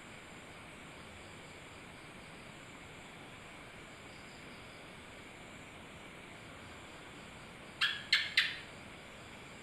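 Steady faint hiss, then three short, sharp chirps from an animal in quick succession near the end.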